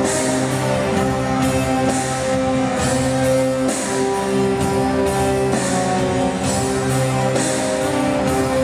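Live circus band music in rock style: held chords with guitar, and cymbal strokes recurring every second or so over a steady level.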